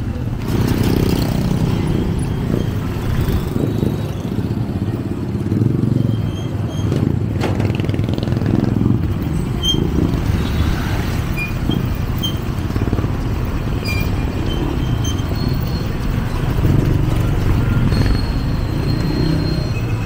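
Busy city street traffic: engines of passing vehicles and motorcycles running in a steady rumble, with a few short high-pitched beeps scattered through it.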